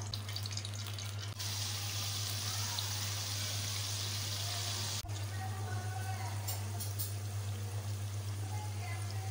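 Potato fries deep-frying in hot oil in a karahi: a steady sizzle that grows louder about a second and a half in as the fries go into the oil, with a steady low hum underneath.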